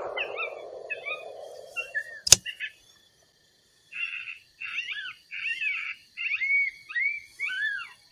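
A fading rush of noise, then a single sharp, loud crack a little over two seconds in. After a short silence comes a string of short, high, arching chirps, about two a second.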